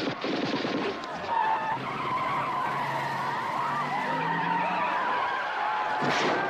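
A man's voice imitating a car with a long, steady tyre squeal over a running engine, ending in a short sharp burst near the end.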